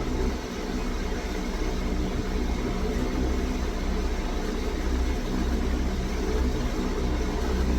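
Steady low machine hum, like an engine idling, with no clear clicks or knocks over it.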